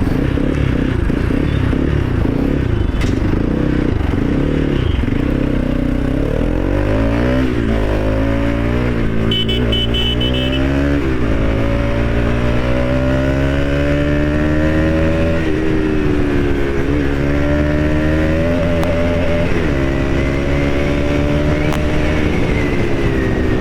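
Motorcycle with an aftermarket Akrapovic exhaust, dB killer fitted, riding along. The engine note climbs in pitch several times and drops back briefly between climbs, as when accelerating up through the gears.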